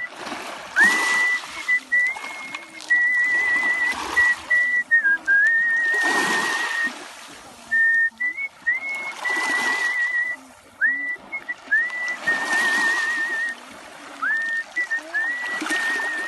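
Artistic mouth whistling of a melody: one clear high tone with a quick vibrato on held notes and short upward slides into many notes, in phrases with brief breaks. Behind it, a rushing noise swells and fades about every three seconds.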